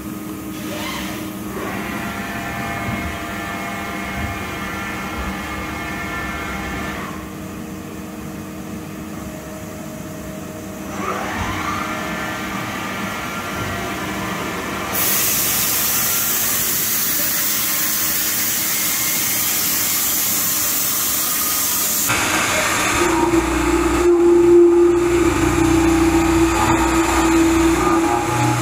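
A UDM-2216 three-axis CNC machining center running its program after cycle start. A rising whine a little before halfway, then a loud steady hiss for several seconds, then the end mill cutting into a metal plate with a steady tone over noisy machining sound near the end.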